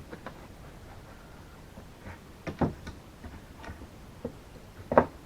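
Scattered light knocks and clicks of a metal rake bar being pushed and worked into a drilled hole in a wooden handle, with two louder knocks about two and a half and five seconds in. The bar is binding because the hole is too narrow.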